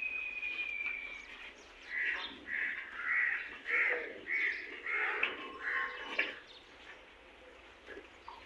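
A crow cawing in a quick run of short, repeated calls, after a thin whistled call from another bird at the start.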